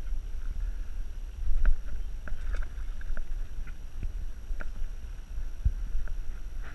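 Wind rumbling on the microphone, with a scattered handful of light clicks and taps.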